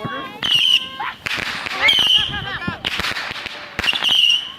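Consumer fireworks going off in quick succession: sharp crackling bursts, several carrying a short shrill whistle.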